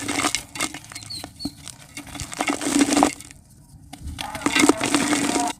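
Soft red dirt being crumbled and crushed, a dry crackly crunching of many small grains breaking apart. It comes in three bursts, with a short pause a little after halfway.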